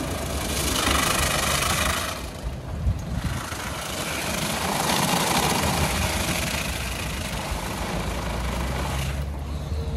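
WashTec EasyWash rollover car wash at work: the gantry's motors hum steadily while the spinning brushes and water spray make a rushing swish that swells twice, about a second in and again around five seconds, and eases near the end.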